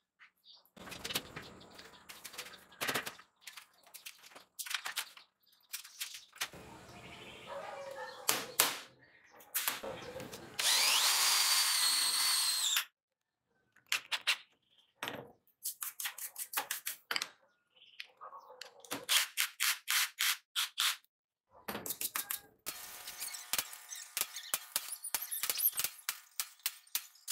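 Workshop sounds: a run of sharp metal clicks and knocks, and a power drill running for about two seconds near the middle, its pitch rising as it spins up.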